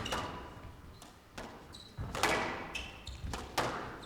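Squash rally: sharp knocks of the ball off rackets and court walls, several in a few seconds, with short squeaks of shoes on the court floor, echoing in a large hall.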